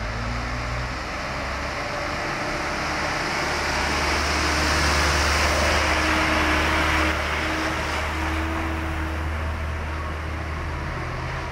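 Light truck's diesel engine running as it drives past close by, swelling to its loudest about five to seven seconds in and then easing off. A second truck's engine carries on underneath as it approaches.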